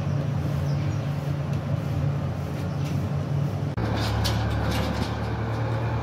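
A steady, low mechanical hum that changes abruptly about four seconds in, followed by a few sharp clicks.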